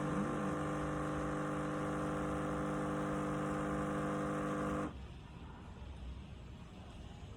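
Nescafé Dolce Gusto Genio S Plus capsule coffee machine's pump buzzing steadily as it pushes water through the coffee capsule, then cutting off suddenly about five seconds in as the brew finishes.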